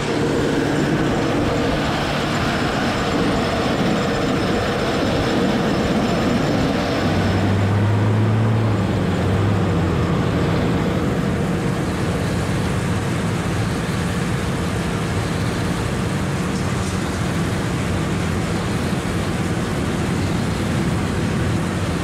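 Potato harvester running in the field, its chain elevator conveying potatoes up into a truck driving alongside, over a steady engine drone. A deeper engine tone swells for a couple of seconds about eight seconds in.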